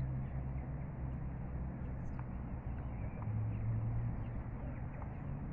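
A low mechanical hum that shifts a little in pitch, over outdoor background noise, with a few faint taps.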